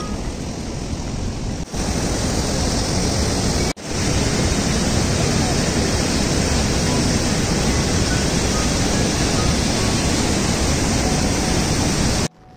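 Loud, steady rush of river rapids as white water pours between large boulders. Two brief dropouts come near the start, and the sound cuts off abruptly just before the end.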